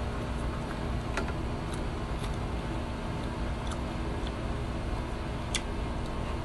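Sparse small clicks and smacks of a person eating with his hands, chewing and picking at food on a plate, the sharpest a little over five seconds in, over a steady low rumble and hum.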